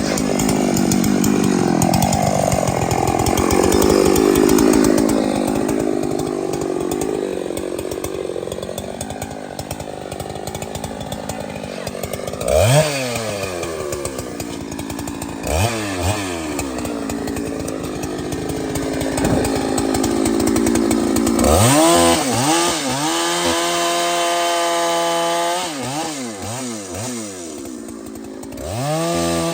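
Large two-stroke chainsaw cutting into a big tree under load, its engine pitch wavering. Then the throttle is released several times with the revs falling off, and the saw is held at high revs for a few seconds before dropping back.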